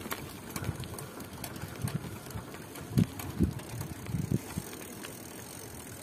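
Bicycle riding noise: irregular low thumps and rattles over a steady rushing noise, with the loudest pair of thumps about three seconds in.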